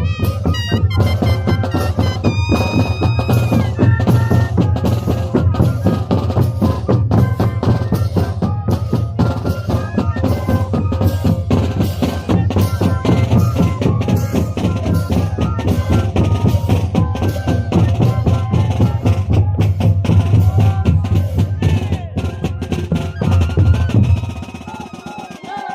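Moseñada troupe playing: Andean duct flutes holding notes over a steady, dense drumbeat. The music falls away sharply near the end.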